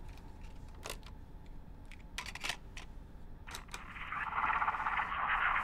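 A few sharp clicks as buttons are pressed on a small electronic device. About four seconds in, a crackling, radio-like signal starts playing: the intercepted encrypted beacon transmission, a film sound effect.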